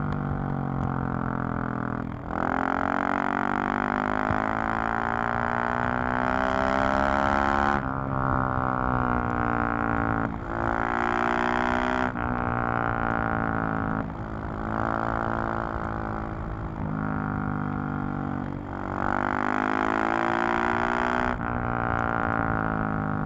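KTM 690 SMC-R's single-cylinder engine and exhaust under way, its pitch climbing and falling with the throttle. Brief breaks in the sound come every two to three seconds, as at gear changes.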